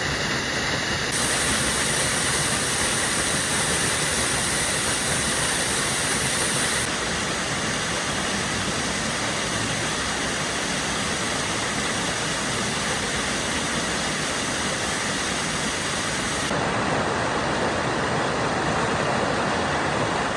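Waterfall: a steady rush of falling water. Its tone changes abruptly three times.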